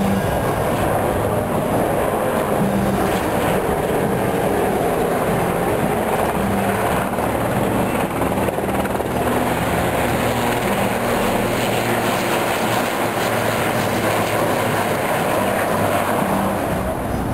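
Sea King helicopter flying over, its rotor and engines making a steady, continuous sound.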